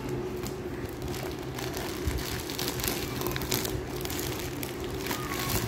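Plastic courier mailer and the saree's plastic wrapping crinkling and rustling as the package is cut open and the wrapped saree is pulled out. It comes as a run of small crackles over a steady low hum.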